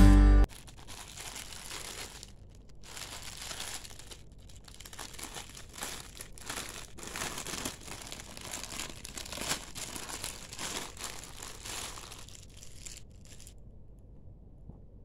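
Clear plastic T-shirt bag crinkling in the hands as it is opened and the shirt is pulled out, in irregular crackles that stop about thirteen seconds in.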